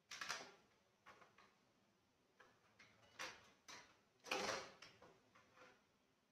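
Scattered short plastic clacks and knocks of an ECG machine's casing and parts being handled on a workbench, the loudest a longer clatter about four and a half seconds in.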